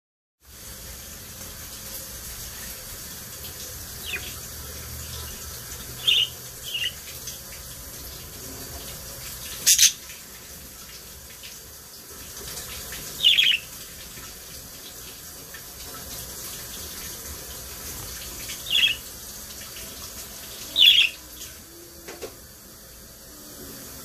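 Budgerigars giving about six short, sharp chirps a few seconds apart over a steady faint hiss, with one sharp click about ten seconds in.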